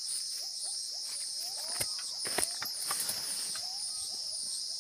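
Steady high-pitched insect chorus of crickets or cicadas, its upper band pulsing a few times a second. Around the middle come several sharp crackles of footsteps through leaf litter and undergrowth.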